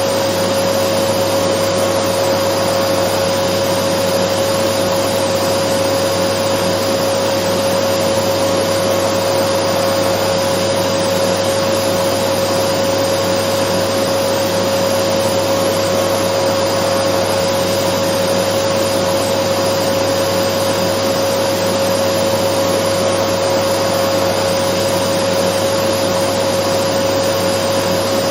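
Dyson vacuum cleaner running at a constant speed: an even rush of air with a steady whine on top that never changes.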